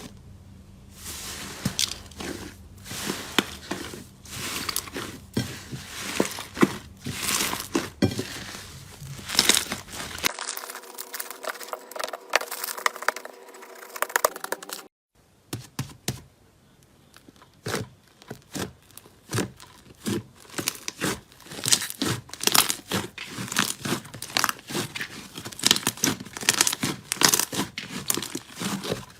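Slime being squeezed, pressed and stretched by hand, giving dense irregular crackling and popping. The crackling thins out for a few seconds around the middle, then picks up again after an abrupt cut.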